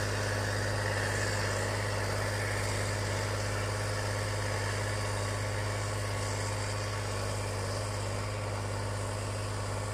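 Steady engine drone with a strong, unchanging low hum and an even hiss over it.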